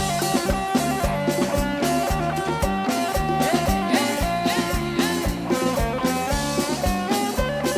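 Instrumental passage of an Isan luk thung song played by a band: a drum kit keeping a steady, even beat under electric guitar and melody lines.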